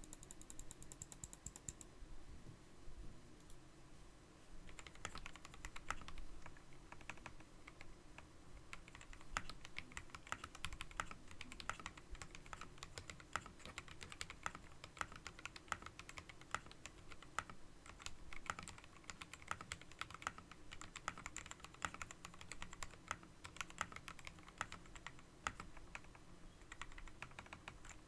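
Typing on a keyboard: fast, irregular key clicks that get going about five seconds in and keep on.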